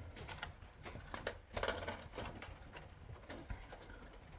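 Cardboard box and plastic packaging rustling and clicking as a 1:400 die-cast model airliner is pulled out of it, with a busier flurry of handling noise a little after the middle.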